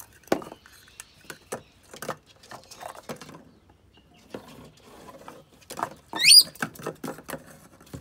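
Red plastic cup knocking and scraping on a cardboard shelf as a rainbow lorikeet pushes and tumbles it about, in many small irregular clicks and taps. About six seconds in there is one short, high squeal that rises in pitch.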